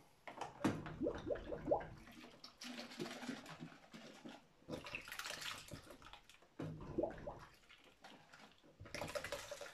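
Water splashing and gurgling in a plastic basin as plastic beer bottles are dunked, filled and rinsed in soapy water, in several separate bursts.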